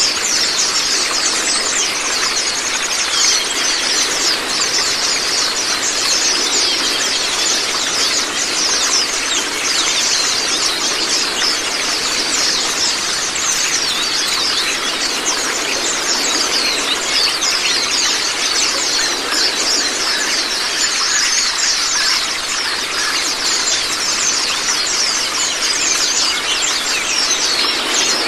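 A flock of white-eyes (Zosterops) singing non-stop in fast, high, twittering chirps over a steady rush of running water.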